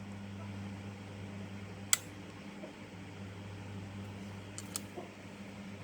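A few sharp metal clicks from circlip pliers working at the bearing retaining clip of a handheld electric cutter: one loud click about two seconds in and two lighter ones near the end. A steady low hum sits underneath.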